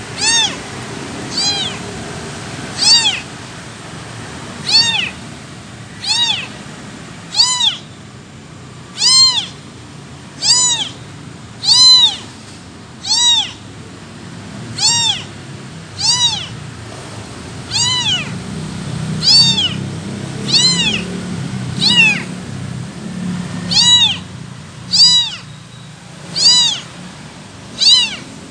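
A kitten meowing over and over, calling for its mother: about twenty short, high-pitched meows, each rising and then falling in pitch, one roughly every second and a half.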